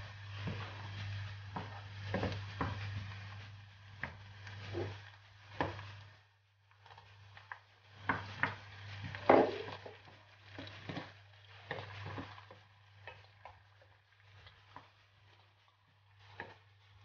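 Chopped onions sizzling in oil in a frying pan, stirred and scraped with a wooden spoon that knocks against the pan again and again. After a short lull about halfway through, chopped tomatoes are tipped in from a glass bowl with a cluster of louder knocks, and the stirring goes on. A steady low hum runs underneath.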